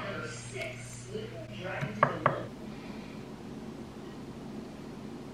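Metal kitchen utensils clinking on dishes, with two light clinks about two seconds in, over a faint low hum that stops a little later.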